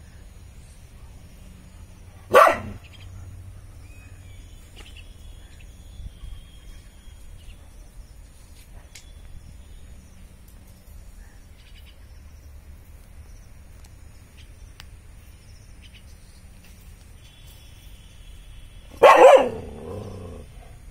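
A dog barking at a snake: one short bark about two seconds in, then a second bark near the end with a weaker follow-on.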